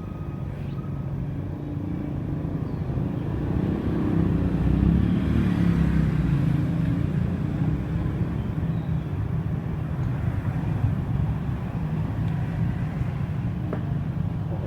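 A motor vehicle engine running, with a low hum that grows louder towards the middle and then eases off.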